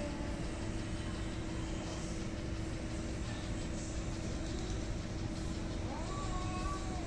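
A cat's drawn-out yowl begins about six seconds in, rising in pitch and then held: the threat call of a cat in a standoff with another cat. Under it runs a steady low rumble with a faint hum.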